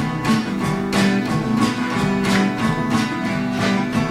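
Instrumental music with no singing: an acoustic guitar strumming chords in a steady rhythm over sustained lower notes.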